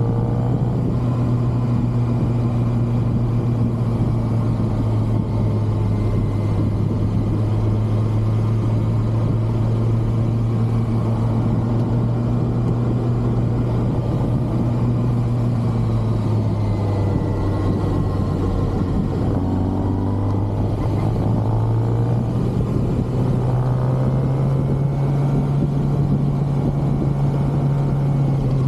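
Stock 2023 Kawasaki ZX-6R inline-four running at a steady cruise over wind and road noise. The engine note eases off briefly past the middle, then climbs to a slightly higher steady pitch.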